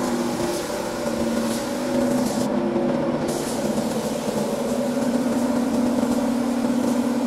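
Gravity-feed air spray gun hissing steadily as it sprays paint onto a car's bodywork, over a steady low machine hum.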